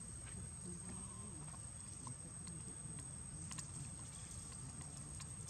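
Faint outdoor background with no single clear event: a steady low rumble, a thin steady high-pitched whine, and scattered soft ticks and rustles.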